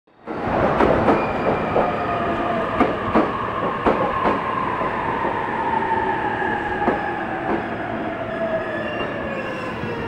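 E231 series electric multiple unit moving off, its wheels clacking over rail joints in pairs of sharp clicks, mostly in the first few seconds, over a steady rolling rumble. A whining tone slowly falls in pitch throughout.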